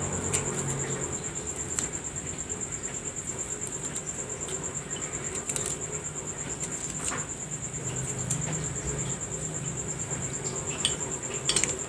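A steady, high-pitched insect trill, with faint scattered clicks and scrapes of a knife peeling ginger root.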